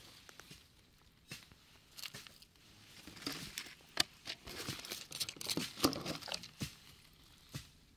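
Dry leaf litter crackling and small stones clicking as a hand sorts through gravel and sets a quartz pebble down on the stony ground. Scattered sharp clicks, with a denser run of crackling from about three to six and a half seconds in.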